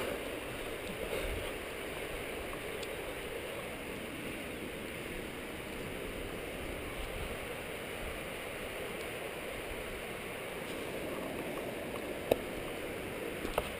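Steady rushing noise of wind on a helmet-mounted camera. Near the end, two sharp clicks come about a second apart, the first louder.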